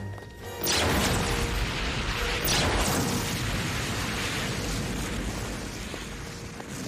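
Explosion sound effect: a sudden blast about half a second in, then a long rumble with a second surge a couple of seconds later, slowly dying away.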